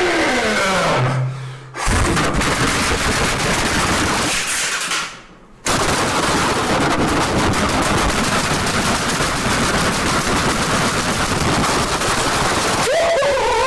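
Loud, dense rapid-fire bangs in two long stretches, broken by a short gap about five seconds in. A falling tone fades out in the first two seconds, and a wavering pitched call comes in near the end.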